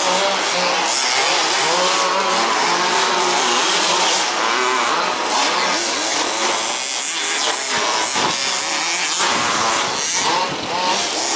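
Several 1/5th-scale RC off-road buggies' small two-stroke petrol engines revving and backing off together, their overlapping pitches rising and falling as the pack races.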